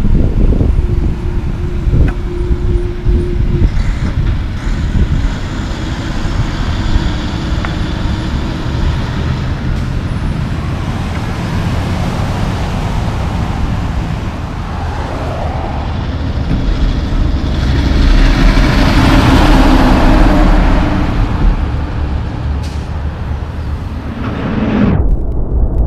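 Highway traffic with loaded logging trucks passing: diesel engines and tyre noise, and one loud pass that swells and fades about two-thirds of the way through.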